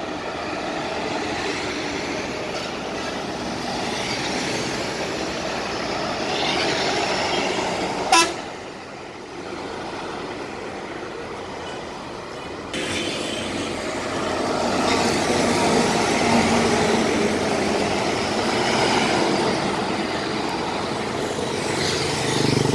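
Road traffic passing: buses, cars and motorbikes driving by, with vehicle horns honking at times. A brief sharp click about eight seconds in, and the traffic gets louder from about thirteen seconds in.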